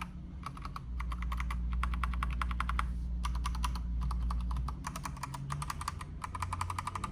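Typing on the white keys of a Redragon K668 mechanical keyboard: quick runs of chunky key clacks, several a second, with short pauses about three and five seconds in. A low rumble sits underneath for the first few seconds.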